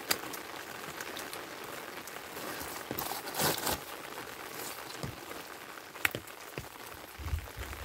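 Light rain pattering steadily, with hands pressing and slapping wet mud-and-plaster mix into a wooden brick mould. A louder burst of squelching and scraping comes about three seconds in, with a few single slaps elsewhere.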